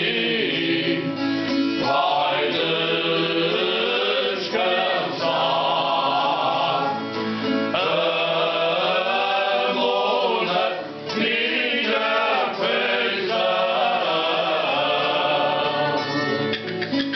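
Viola campaniça strummed and plucked under men's voices singing a folk song, with other voices joining in.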